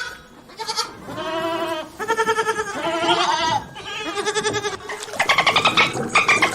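Livestock bleating: a run of about five wavering calls, each around a second long, the last ones quavering fast and falling in pitch.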